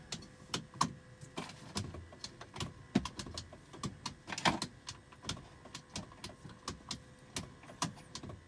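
Door lock/unlock switch in a 2004 Mini Cooper clicked over and over, about two to three sharp clicks a second. The locks do not respond, so the switch looks to be not working.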